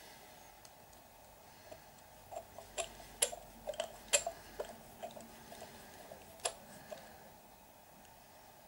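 Light clicks and taps of small plastic and metal parts being handled and a hex driver working a screw on an RC truck's steering arm, with a few sharper ticks among them in the middle.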